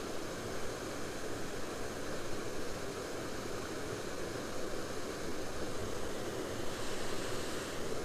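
Steady rushing noise of flowing water at a spillway, even and unbroken.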